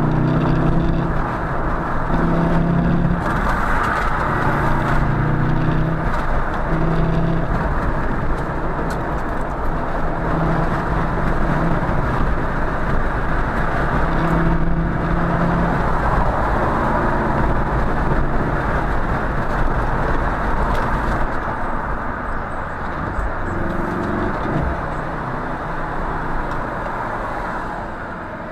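A car driving on a freeway, heard from inside the car: steady, muffled road and engine noise, with a low hum that swells in and out for a second or so at a time.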